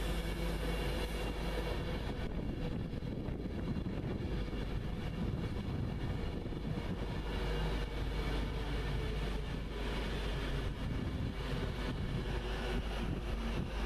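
Virgin Trains express passenger train running steadily through the station: continuous rolling noise of wheels on rail with a steady whine.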